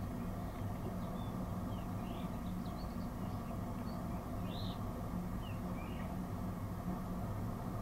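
Small birds giving a scatter of short high chirps over a steady low hum.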